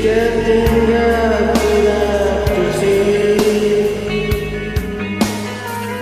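Rock song from a Smule karaoke recording: one long held note that bends slightly in pitch, over the band, with a drum hit about once a second.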